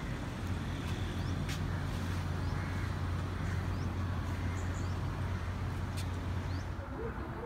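Steady low engine hum amid city traffic noise, the hum dropping away near the end, with a few short, high, rising bird chirps.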